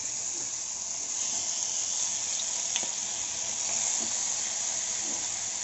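Hot oil sizzling steadily in a frying pan as masala-marinated tilapia (jilebi fish) are laid in one by one.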